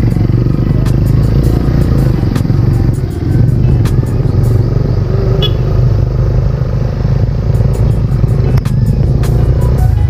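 Motorcycle running while being ridden: a steady low rumble with scattered sharp knocks.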